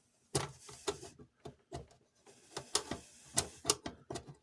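A screwdriver clicking and scraping against the metal tabs of a Lionel passenger car body as a tab is pried and pushed down, in an irregular string of sharp clicks and short scrapes.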